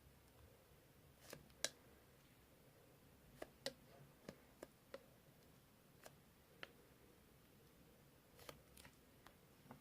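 Two-layer slime being pressed and stretched by hand, giving about a dozen faint, irregular clicks and pops.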